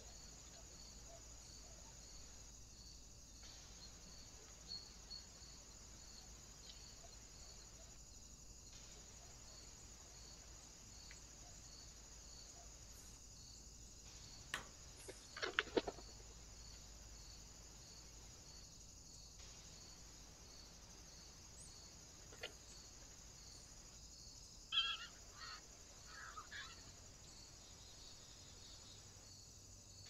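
Faint steady high-pitched chirring of insects, with a quick flurry of wing flaps and knocks about halfway through as Eurasian jays scuffle at a feeder post. A few short bird calls come near the end.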